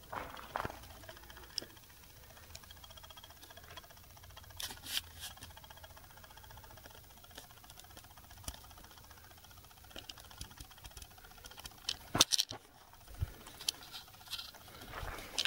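Mostly quiet background, broken by scattered faint footsteps and clicks, with a short cluster of them about twelve seconds in.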